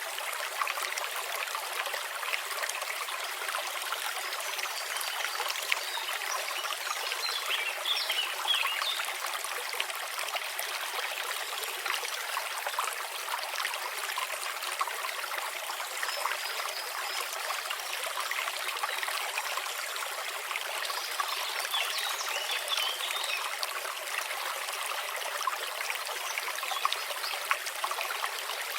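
Babbling brook: shallow water trickling and splashing steadily, with many small splashes and no deep rumble.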